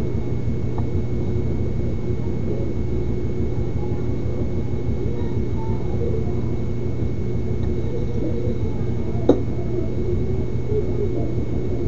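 Steady background hum with faint constant high tones, and one sharp click about nine seconds in.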